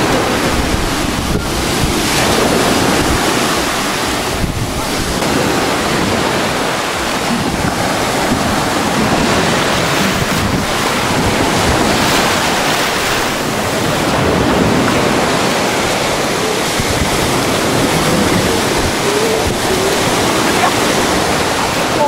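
Small sea waves breaking and washing up on a sandy beach, a steady surf hiss that swells and eases, with wind buffeting the microphone.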